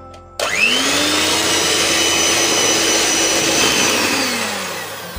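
Electric hand mixer starting up with a rising whine about half a second in, then running steadily as its beaters whip butter, sugar and egg yolks into a smooth cookie dough base. Near the end its pitch and loudness fall away as the motor winds down.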